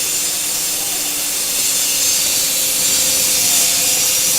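Angle grinder with a tungsten-carbide-tipped saw blade attachment cutting into another saw blade. It makes a steady, high-pitched grinding hiss over the grinder motor's steady hum as the carbide teeth are worn away.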